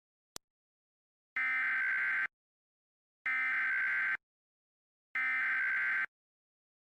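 Emergency Alert System SAME header: three identical bursts of digital data tones, each just under a second long with about a second between them, marking the start of a new alert message. A short faint click comes just before the first burst.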